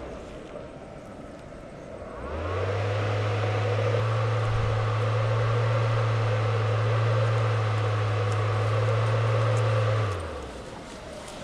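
A motor starts about two seconds in, runs at a steady low hum for about eight seconds, then winds down.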